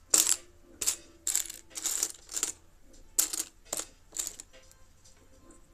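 Loose plastic Lego pieces clattering and clicking as they are handled, in about eight short rattles over four seconds.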